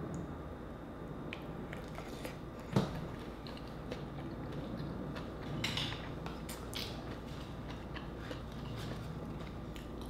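Chewing of green-lipped mussel meat, with many small clicks throughout and one sharp knock about three seconds in.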